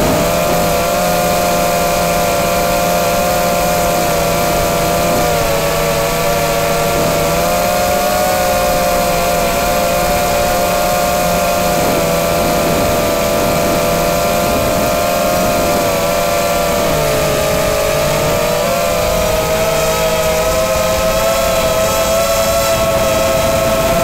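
Parrot quadcopter's electric motors and propellers whining steadily, heard from on board: several close tones that waver and dip slightly in pitch as the drone changes speed.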